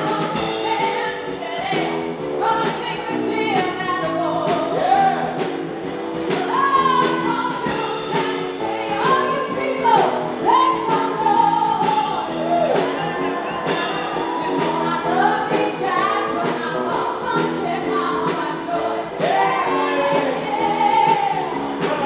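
Live band playing an upbeat song, with electric guitars, bass, drums and keyboard under a lead vocal that swoops up and down in pitch.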